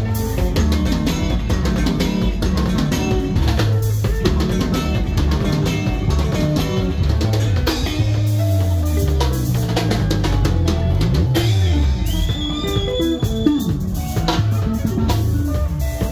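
Live sungura band playing: a busy electric bass line running under interlocking electric guitar parts, with a drum kit keeping a steady beat.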